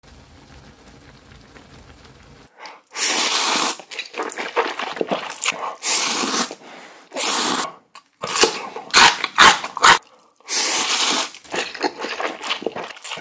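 Close-miked eating sounds: noodles slurped in several long pulls, mixed with crunching bites of crisp chonggak (young-radish) kimchi, starting about two and a half seconds in after a faint low hum.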